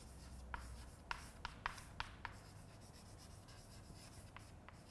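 Chalk tapping and scratching on a blackboard as a word is written by hand: a run of short, sharp taps in the first two seconds or so, then only a few faint ticks.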